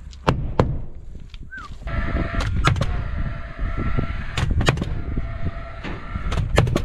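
Paslode cordless framing nailer firing ring-shank nails into a wooden ledger board: sharp shots, mostly in quick pairs about every two seconds, with a steady whir underneath from about two seconds in. Two sharp knocks come in the first second.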